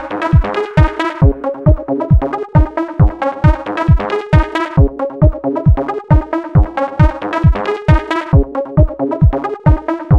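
Electronic dance music with a steady kick drum at about two beats a second under synthesizer chords.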